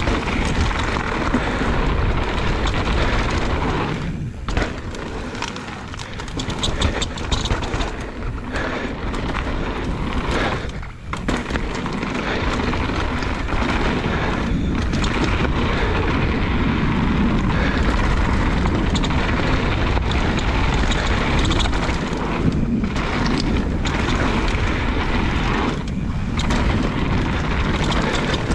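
Wind buffeting the camera microphone and a mountain bike's tyres rolling fast over a rough dirt trail, a dense steady rush broken by a few brief lulls.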